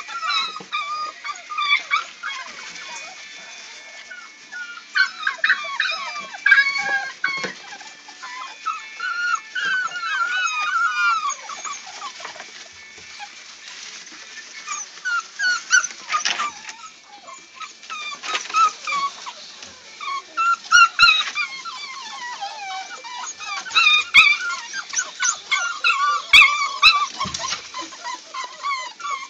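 Several seven-week-old American Pit Bull Terrier puppies whining and yipping over one another in short, high cries that bend up and down, with a quieter stretch about halfway through. Scattered sharp clicks and knocks are mixed in.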